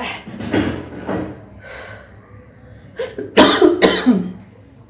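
A woman coughing, set off by chilli fumes: a few coughs near the start, then a louder run of coughs about three seconds in.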